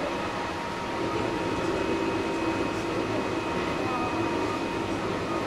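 Kintetsu 1230 series electric train with Hitachi GTO inverter drive, running: rail and wheel rumble with steady electrical tones from the traction equipment, and a lower tone joining about a second in.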